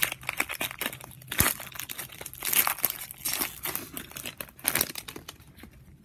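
Foil wrapper of a trading-card pack being torn open and crinkled by hand, in irregular crackling bursts.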